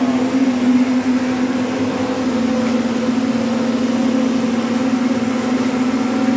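Electric juice blender motor running steadily at high speed, an even motor hum that drops slightly in pitch about two seconds in.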